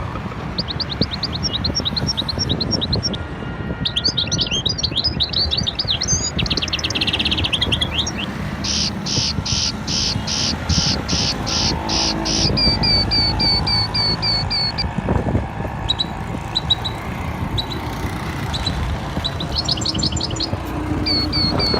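Songbirds singing and chirping: fast trills, quick runs of repeated high notes and a spell of slower, evenly spaced calls about two a second, one bird after another. A steady low rumble runs underneath.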